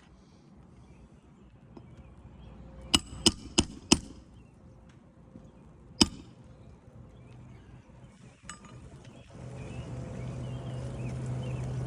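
Hammer blows on nails: four quick metallic strikes about a third of a second apart, then a single strike a couple of seconds later. Near the end a steady low hum comes in.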